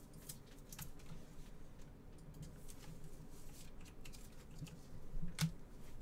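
Trading cards being handled with gloved hands: soft rustling and light clicks of card stock and plastic, with one sharper click about five seconds in.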